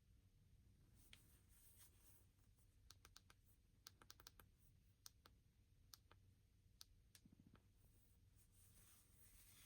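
Faint handling sounds from a smartphone and its packaging: scattered light clicks and taps, some in quick little clusters, with brief soft rubbing near the start and again near the end, over a low steady hum.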